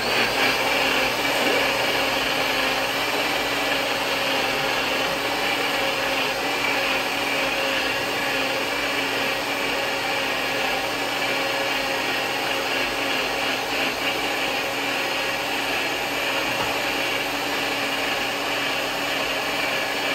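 Motor of a kitchen blending appliance running steadily at one speed, pureeing a dip of fresh herbs, olive oil and Greek yogurt.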